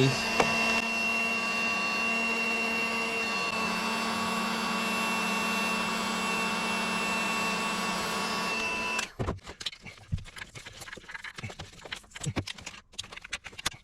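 A small electric motor runs steadily with a constant whine over a hiss for about nine seconds, then cuts off abruptly. Light clicks and handling noises follow.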